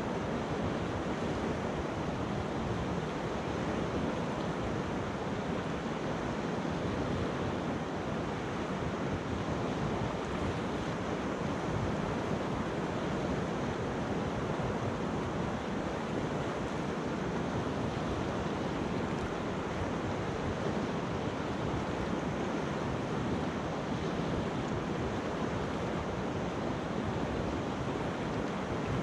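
Mountain river water rushing steadily around a pebble bed, an even, unbroken rush of flowing water.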